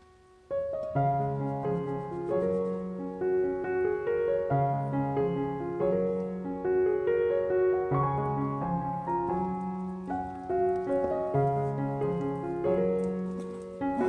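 Background piano music, a gentle melody of single notes over a repeating bass, starting about half a second in.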